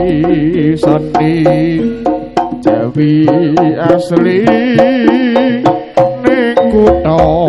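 Live jaranan gamelan accompaniment: kendang hand-drum strokes in a quick, regular beat under steady pitched gamelan tones, with a melody line that wavers strongly in pitch above.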